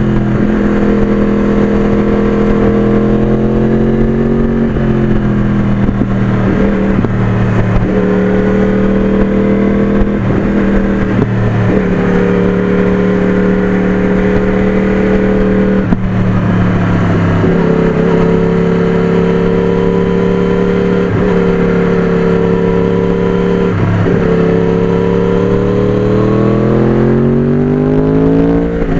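Motorcycle engine running at steady road speed, heard from on the bike. Its pitch steps down several times, with short breaks like gear changes, and climbs near the end as it accelerates.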